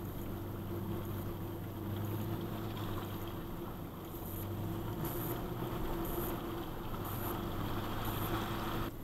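A 2010 Toyota FJ Cruiser's 4.0-litre V6 running steadily at crawling speed, heard from inside the cabin, with water swishing under the truck as it drives out of a shallow pond. Faint high ticks come about once a second in the second half, and the sound cuts off abruptly near the end.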